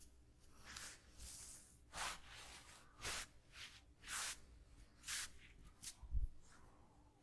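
Hands rubbing and swishing over skin during a massage: a string of about ten short, soft strokes, faint overall, with a low soft thump about six seconds in.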